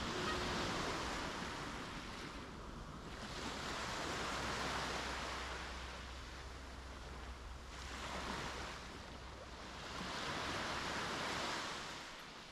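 Sea waves breaking and washing up the beach in swells about every three to four seconds.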